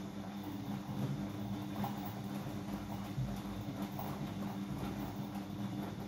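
Siemens iQ100 front-loading washing machine in its main wash: the drum turning the laundry, with soft, irregular knocks over a steady motor hum.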